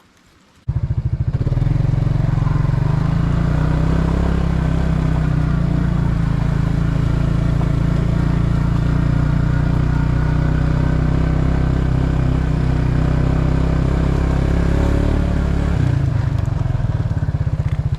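Off-road bike's engine running steadily while riding, starting abruptly about a second in and changing note near the end.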